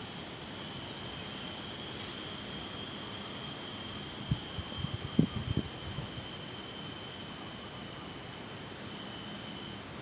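Tropical forest insects, such as cicadas or crickets, keeping up a steady, high-pitched drone with several unbroken tones. A few soft low thumps fall near the middle.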